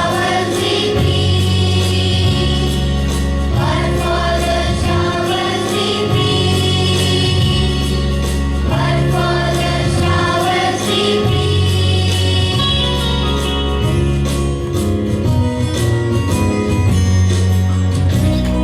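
Choir singing a Christian song over music with a steady bass and beat.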